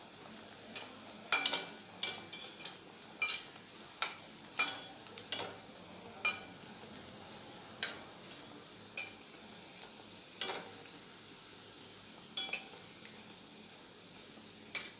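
Aloo masala puri deep-frying in hot oil in a stainless steel kadhai, with a steady sizzle. Irregular sharp clinks and scrapes of a metal spoon against the steel pan come as the puri is moved and turned in the oil.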